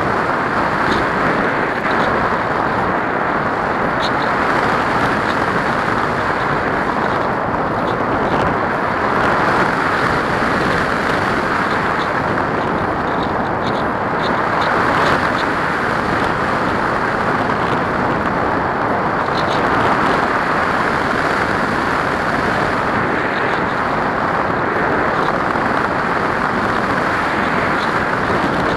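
Steady rush of airflow over a camera riding on a model aircraft in flight, with faint high ticks now and then.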